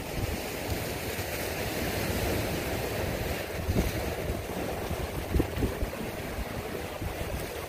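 Sea waves washing and breaking against the boulders of a rock jetty, with wind buffeting the microphone in gusts.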